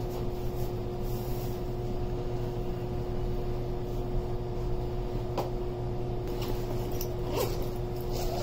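Steady machine hum with a constant tone, like an appliance or fan motor running, with a few faint rustles and clicks as clothes are handled.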